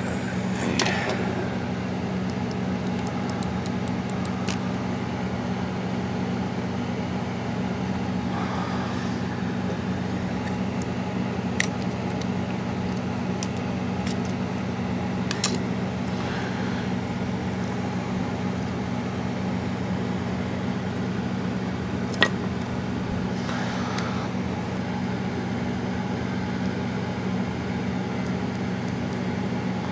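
A steady low hum, with a few small sharp clicks and soft rustles as the plastic shell and circuit board of an opened computer mouse are handled.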